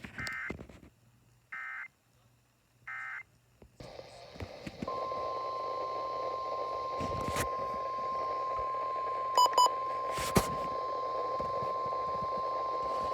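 NOAA Weather Radio EAS signalling: three short screechy SAME end-of-message data bursts, then radio static, and from about five seconds in the steady 1050 Hz weather radio warning alarm tone, held for about nine seconds. Two short beeps and a click come partway through the tone.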